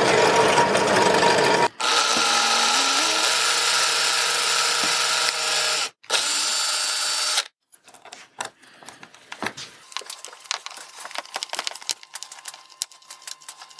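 Power drill running in three bursts as a 2.5 mm hole is drilled into a 10 mm square aluminium profile and an M3 thread is then tapped into it; the motor's pitch steps upward during the second burst. After about seven and a half seconds the drill stops, and only small scattered clicks follow as a screw is driven by hand with a small screwdriver into a 3D-printed plastic part.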